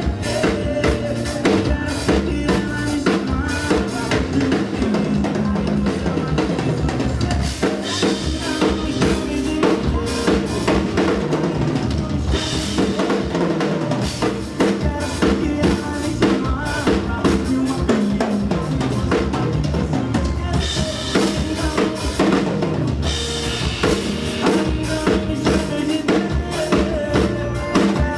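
Drum kit played live over a recorded band backing track: a steady groove of bass drum, snare and rimshot hits under the music, with the cymbals ringing brighter in two stretches, a little before halfway and again about three-quarters through.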